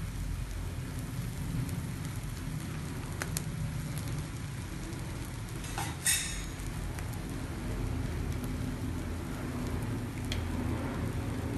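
Egg-coated bread slices with onion frying in ghee in a nonstick pan, with a steady crackling sizzle. A few faint clicks and one short, sharp clatter about six seconds in.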